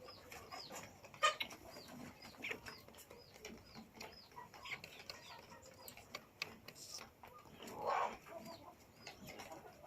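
Kienyeji chickens clucking, among many short, repeated high peeps and scattered sharp clicks. A louder cluck comes about eight seconds in.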